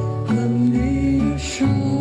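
Slow music with long held notes over a low bass line that changes about once a second.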